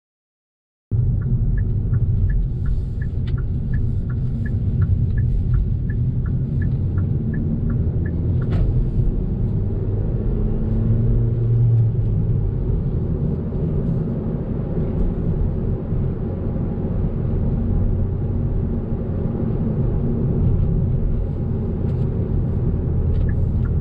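Road and engine rumble heard inside a moving car's cabin. It starts about a second in and runs steady throughout. A turn signal ticks evenly, about three ticks a second, for the first several seconds and again near the end.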